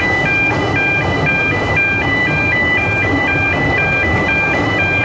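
An electronic warning alarm sounding a fast, repeating cycle of stepped beeping tones, over the low rumble of narrow-gauge railway carriages rolling past.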